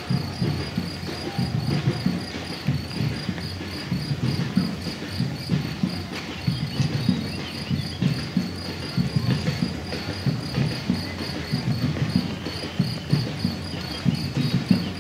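Many runners' footfalls on asphalt as a pack passes, heard as irregular low thuds a few times a second. Over them, an insect chirps high in a rapid, even rhythm throughout.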